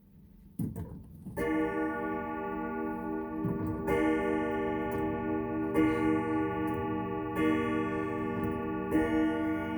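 A 1981 Howard Miller triple-chime grandfather clock striking the hour: five ringing strokes, each sounded by a group of hammers striking together as one big sound, about two seconds apart and each ringing on into the next. A few faint clicks from the movement come just before the first stroke.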